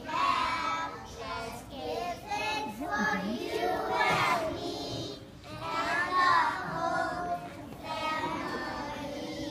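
A group of four-year-old children singing a song together in unison, in phrases with short breaks between them.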